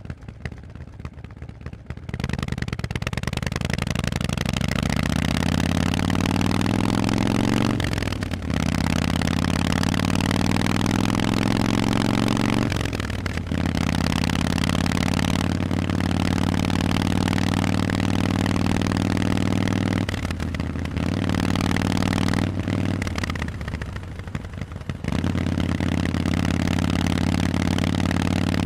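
Harley-Davidson Forty-Eight's air-cooled 1200 cc V-twin running through Vance & Hines aftermarket pipes while being ridden. About two seconds in it pulls with a rising pitch, breaking off briefly twice for upshifts, then runs steadily under throttle. Near three-quarters through it eases off for a few seconds and then picks up again.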